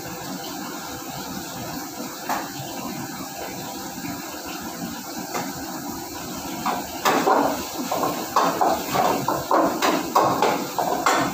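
Steady background noise of a commercial kitchen, then from about seven seconds in a rapid run of sharp knocks and clatter of cookware and utensils being worked.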